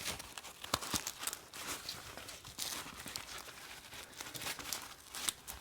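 Small gear and a wallet being handled close up: rustling and crinkling with scattered sharp clicks and taps.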